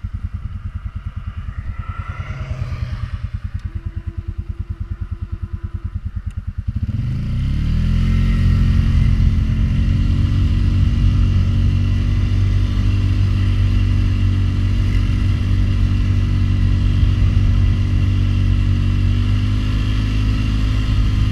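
Polaris Sportsman 500 HO ATV's single-cylinder engine idling with an even, pulsing beat. About seven seconds in it revs up sharply and holds steady high revs at full throttle while the 60-inch plow pushes snow.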